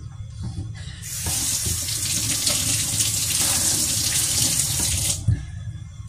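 Kitchen tap running into a steel sink while a wooden chopping board is rinsed under it. The water starts about a second in, runs for about four seconds, then is turned off, followed by a sharp knock.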